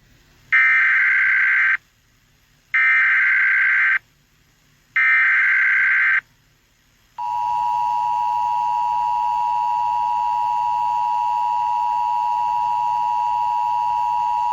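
Emergency Alert System header: three short bursts of SAME data tones, about a second each, followed by the EAS two-tone attention signal, a steady dual tone held for about eight seconds, marking the start of an emergency alert.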